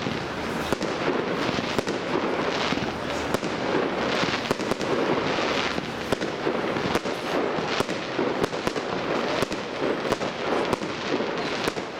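Fireworks display: many sharp bangs and crackles following one another in quick succession, over a continuous dense wash of noise.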